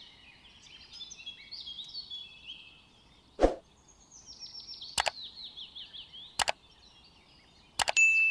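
Eggshells knocking and cracking against a bowl while eggs are separated. There is a sharp crack about a third of the way in, paired clicks a little later, and a quick cluster near the end. Birds chirp throughout in rapid falling trills.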